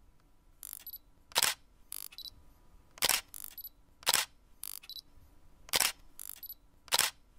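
Camera shutter clicks as a series of photos is taken: about five sharp clicks roughly one to one and a half seconds apart, with fainter clicks in between, over a quiet background.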